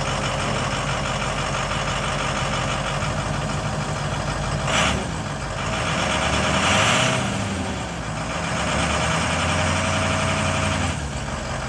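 2004 Ford F350 Super Duty's 6.0-litre Power Stroke V8 turbo diesel idling steadily, with a brief rev that rises and falls about seven seconds in. A short burst of noise comes a little before the rev.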